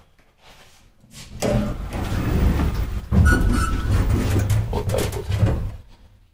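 Loud, irregular rubbing and rumbling as the phone is handled against a quilted jacket. It starts about a second in and stops near the end.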